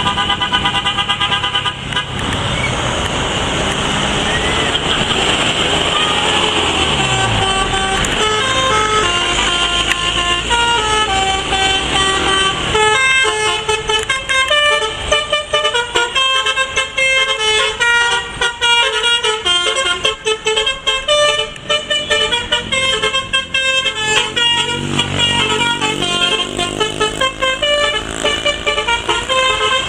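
Indonesian 'telolet' multi-tone bus horn playing a long run of short notes that step up and down in pitch like a tune, after a few seconds of rushing noise.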